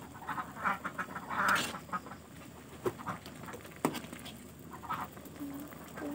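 A duck quacking a few times in the first two seconds, then a metal spoon clinking against a metal pan every second or so as noodles in broth are stirred.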